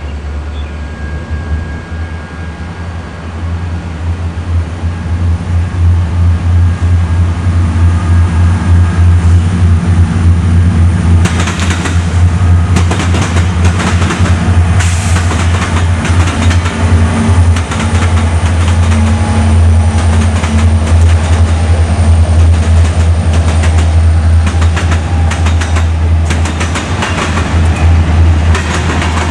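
EMD diesel locomotives of a freight train (SD70 and GP-series units) passing close by, their deep engine drone building as they approach. From about a third of the way in, the wheels bang repeatedly over the rail crossing diamond.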